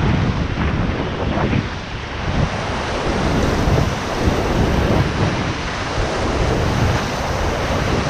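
Rushing whitewater rapids of the Ganges churning around a raft, a loud steady roar, with wind buffeting the action camera's microphone.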